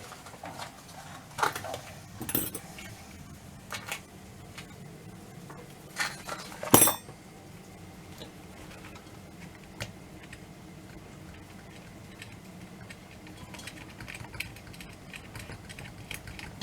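Small metal clock parts and tools clinking and tapping during hand assembly: several sharp clinks in the first seven seconds, the loudest just before the seven-second mark, then only faint occasional ticks.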